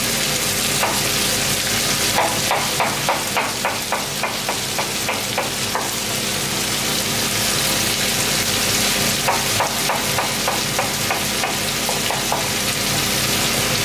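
Chef's knife slicing bell pepper on a wooden cutting board: two runs of quick chops, about three a second, one about two seconds in and another about nine seconds in. Under them is the steady sizzle of chicken and onions frying in a pan, with the hum of a kitchen extractor hood.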